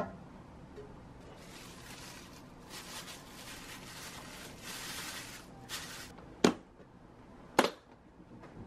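Plastic wrap crinkling as a gloved hand presses it down over kimchi in a plastic storage container, followed by two sharp plastic clicks as the container's lid is fitted on.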